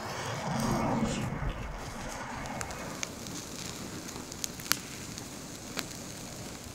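A pile of dry twigs burning after being lit with a match: a fuller rush of flame in the first two seconds, then a steady hiss with a handful of sharp crackling pops.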